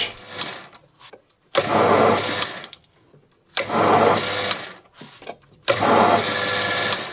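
Proxxon PD 250e mini lathe run in three short spells of about two seconds each, each starting abruptly and stopping between them: successive thread-cutting passes with a carbide threading tool, the lathe running in reverse at fairly high speed.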